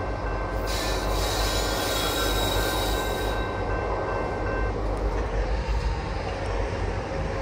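Freight train rolling along the rails with a steady low rumble, its wheels squealing on the track at a high pitch from about half a second in for about three seconds, with fainter squeal fading out a little later.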